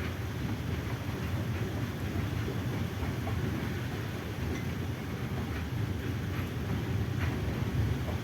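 Container goods train's wagons rolling past, a steady low rumble with faint clicks from the wheels on the rails.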